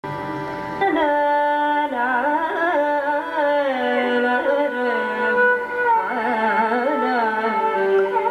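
Carnatic music: a woman singing a slow, gliding, ornamented melody with violin accompaniment, getting louder about a second in.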